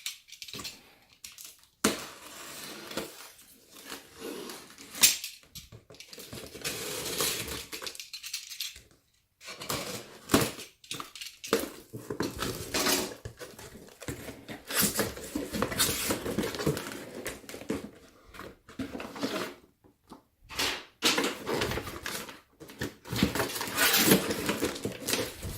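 An electric meat mincer's box being opened and unpacked by hand: cardboard and plastic packaging rustling and tearing, with irregular clicks and knocks as hard parts are handled and set down.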